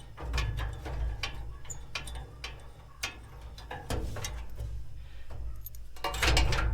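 Ratchet wrench clicking in separate sharp clicks as bolts on a gas grill are worked loose. A louder clatter of metal comes near the end.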